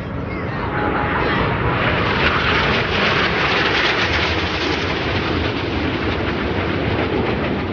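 Jet noise from Aermacchi MB-339 turbojet trainers flying past. It swells over the first couple of seconds and then holds as a steady, loud rush.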